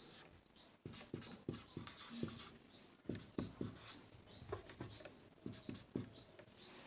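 Faint strokes of a marker pen writing on a board, with a small bird chirping over and over in the background, one short call about every half second.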